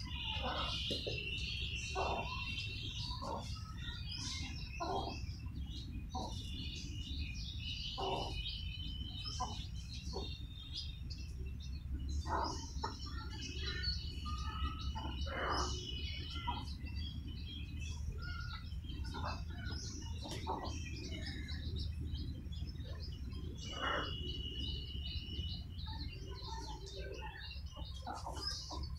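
A brood of young chicks peeping busily in high, rapid chirps, while the mother hen gives short low clucks every second or so. A steady low rumble runs underneath.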